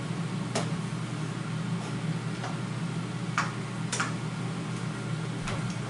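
A spoon clicking against a roasting pan a few times at irregular intervals as the vegetables and chicken are stirred, over a steady low hum.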